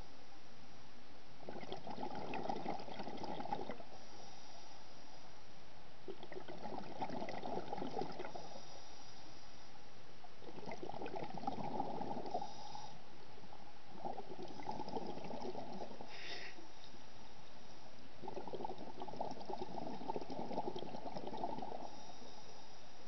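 Scuba diver breathing through a regulator, heard underwater: a bubbly rush of exhaled air about every four seconds, with quieter gaps between.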